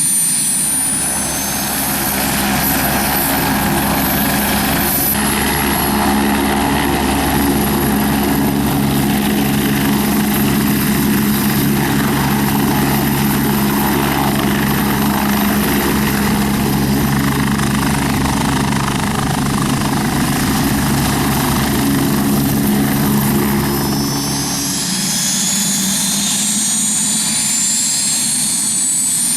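Radio-controlled scale model helicopter (Eurocopter EC 135 replica) flying, its rotor and motor running steadily with a low throbbing drone and a high whine; near the end the whine rises in pitch.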